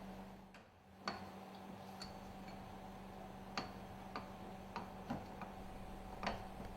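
Faint, scattered light clicks and taps, about seven over several seconds, over a steady low hum: lubricator parts and tools being handled during the overhaul.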